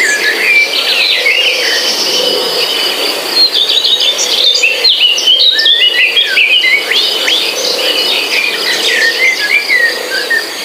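Many birds chirping and whistling in quick, overlapping calls, over a steady high-pitched insect drone.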